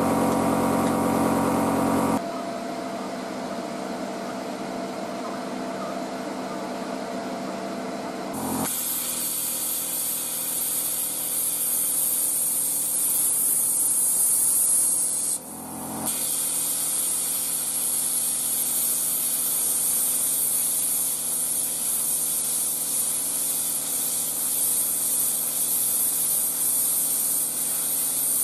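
Parkside PPSK40A1 plasma cutter cutting 10 mm steel plate: a steady high hiss of the arc and its compressed air. It starts several seconds in after a humming stretch, stops briefly around the middle and starts again.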